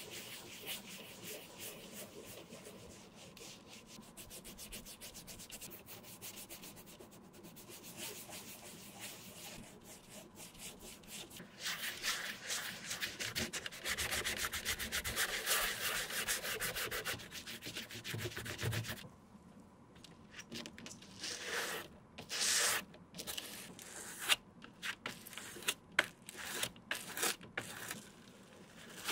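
Cotton ball held in forceps, rubbed and dabbed over a rubber sole sheet with a wet scrubbing sound that grows louder partway through. In the last third it breaks into short, separate strokes as a bristle brush spreads a glossy coat over the sheet.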